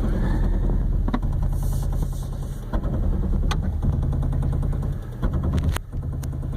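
2016 Toyota Tacoma's crawl control holding a slow crawl over a steep crest: the ABS actuator rapidly pulsing the brakes at each wheel, a fast rattling clatter over the low drone of the engine, with a few sharper clicks.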